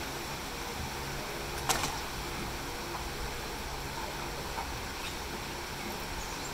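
Steady outdoor background noise with a low hum, and one sharp knock from the hockey play, stick or ball, about two seconds in.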